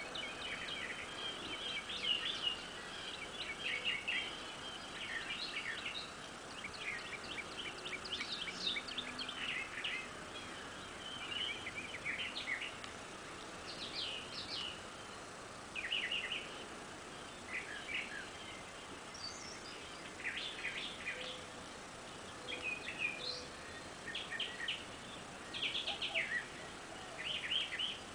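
Birds singing and calling: short, high chirps and quick trills repeating every second or two, over a steady outdoor hiss.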